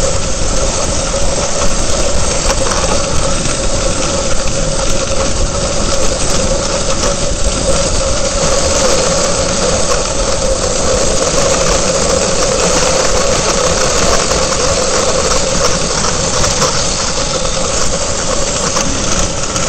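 Dog sled moving at speed: runners hissing and scraping over packed snow, with wind rushing over the helmet-mounted camera. A steady drone with a faint squeal runs under the hiss.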